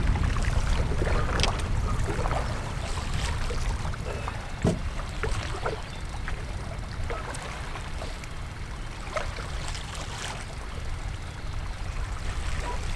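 Wind rumbling on the microphone over choppy water slapping and splashing against the side of a small fishing boat, with scattered light knocks.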